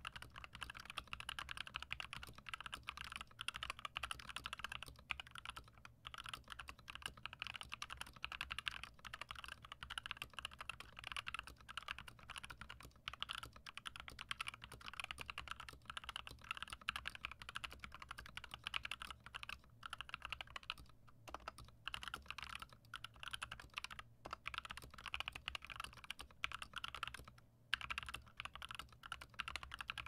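Fast, continuous typing on an HK Gaming GK61 60% keyboard with Gateron optical yellow switches in a steel plate. A dense stream of keystrokes with a few brief pauses.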